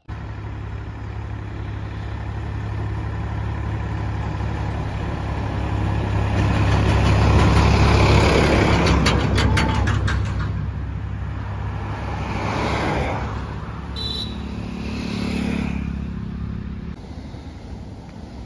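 Road traffic passing: a steady low rumble with a rush that builds to a peak about eight seconds in and fades, then two smaller swells as more vehicles go by.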